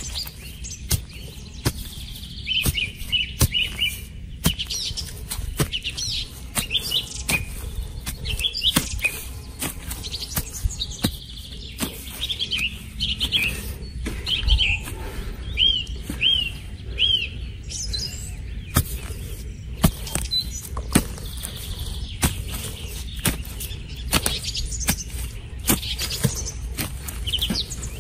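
A wooden stick jabbing and scraping into dry, crumbly soil, giving many short knocks and the patter of dirt clods. Small birds chirp throughout, in quick runs of short rising-and-falling notes.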